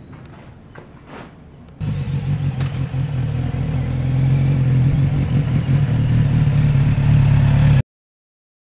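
A few faint clicks, then about two seconds in the 2024 Kawasaki Z900 RS's inline-four engine running as the motorcycle rides slowly up to the listener, growing louder about four seconds in and holding a steady low note. It cuts off abruptly near the end.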